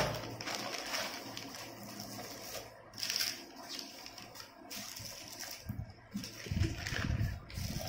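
Plastic courier mailer rustling and crinkling as it is handled and opened, with a few dull bumps from handling the boxed item near the end.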